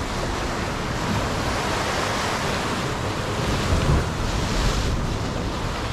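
Sea surf washing against concrete breakwater blocks, with wind noise on the microphone.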